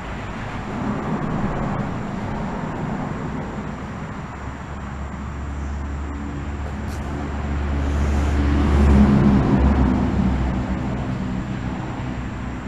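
Road traffic noise with one motor vehicle passing close by. Its low engine rumble builds to a peak about two thirds of the way through, then fades away.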